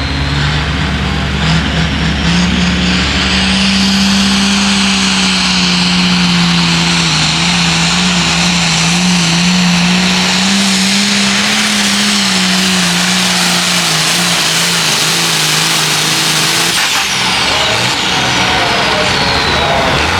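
Hot farm pulling tractor's engine at full throttle hauling the sled. Its note climbs over the first few seconds, holds high for roughly fifteen seconds with small dips, then drops away near the end as the run finishes.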